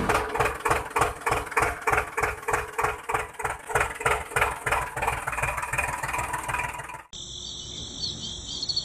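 Miniature model tractor's engine chugging at an even beat of about four a second, with a steady whine above it. It cuts off suddenly about seven seconds in and gives way to high cricket chirring.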